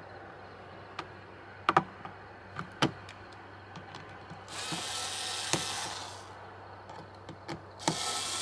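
Sharp clicks and knocks as a solar motion-sensor light is handled and fixed to a wall. Twice a power tool runs in harsh bursts of about two seconds, once around the middle and again near the end.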